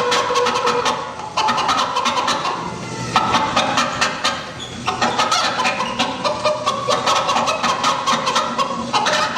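Stage music with a quick, regular beat, mixed with chicken-like clucking.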